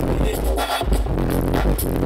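Electronic music with very heavy deep bass playing loud on the truck's bass sound system, heard from inside the cab.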